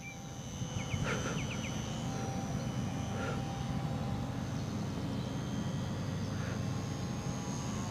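HobbyZone Super Cub S RC trainer plane's electric motor running steadily in flight at a distance, under a steady rumble of wind on the microphone. A few short chirps about a second in.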